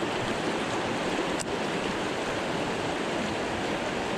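Shallow river riffle rushing steadily over rocks, with one faint click about a second and a half in.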